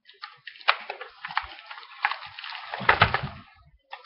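Packaging being handled and torn open, a crackling, crinkling rustle with many small snaps, and a handling thump about three seconds in.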